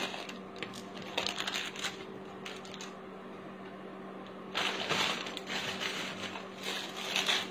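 Clear plastic jewellery packets crinkling, with small clicks as earring cards and metal jewellery are set down on a tabletop. The handling comes in bursts with pauses between, over a faint steady hum.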